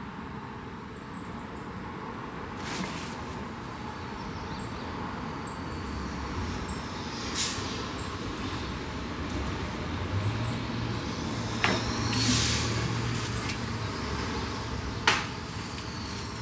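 A motor vehicle's low engine hum swelling through the middle and fading again, over steady outdoor background noise, with a few short scrapes and knocks.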